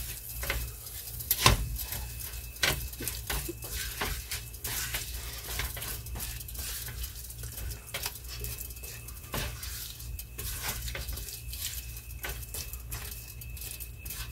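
Silicone spatula scraping and tapping against a nonstick frying pan at irregular moments while stirring and breaking up frying pork chorizo with onions and peppers, over a light sizzle.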